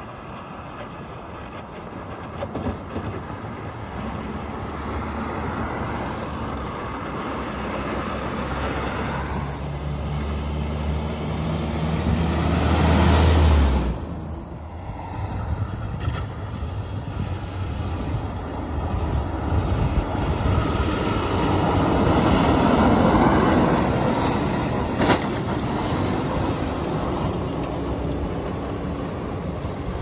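Heavy diesel snow plow trucks passing on a snow-covered road: a low engine drone with rumbling road noise that swells as a plow approaches, breaks off suddenly partway through, then swells again to a second pass. A single sharp click comes near the end of the second pass.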